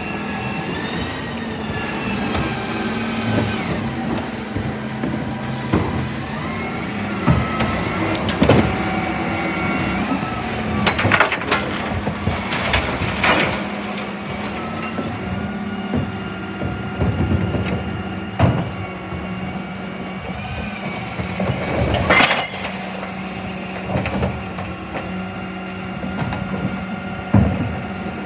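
Dennis split-body recycling bin lorry's diesel engine running steadily, with the rear bin lift working through its cycles and several loud clatters as plastic wheelie bins bang against the lift and hopper while they are tipped.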